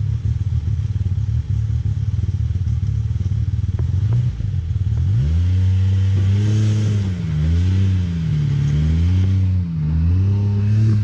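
Side-by-side UTV engine rumbling low, then from about five seconds in revving up and easing off several times in short throttle bursts while crawling over rocks.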